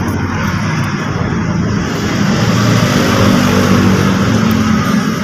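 A motor vehicle engine running, growing louder toward the middle and dropping off sharply near the end.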